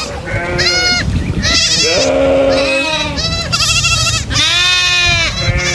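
Several goats bleating, one call after another with some overlapping, each a wavering, quavering bleat.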